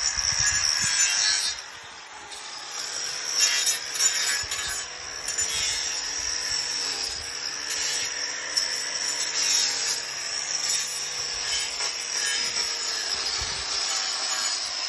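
Angle grinder trimming a cow's overgrown hooves, running with a continuous grinding hiss. It drops off briefly about two seconds in, then resumes, rising and falling in strength.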